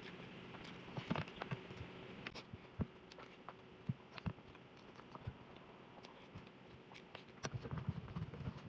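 Faint eating sounds: a metal spoon scooping rice-bowl food and chewing, heard as scattered small clicks and soft thumps. The clicks cluster about a second in and again near the end.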